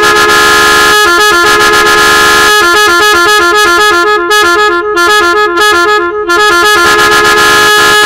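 A pair of Korean 'ngân' electric car horns sounding very loud: a long steady held tone at first and again near the end, and in between rapidly switching back and forth between two pitches.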